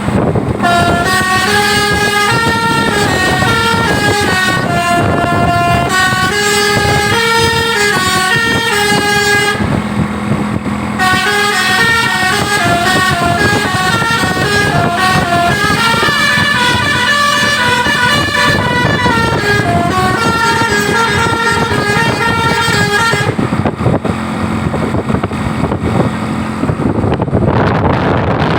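Telolet bus horn: a tour bus's multi-tone musical air horn playing a stepping melody in two long runs, with a short break about ten seconds in, and stopping about twenty-three seconds in. Road and wind noise run underneath and are all that is left near the end.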